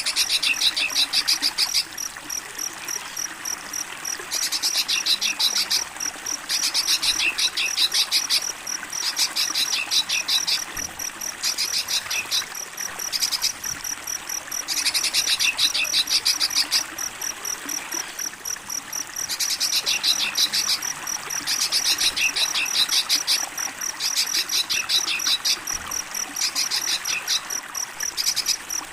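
Crickets chirping in bursts of rapid trilled pulses, each a second or two long and coming every couple of seconds, over the steady rush of running water.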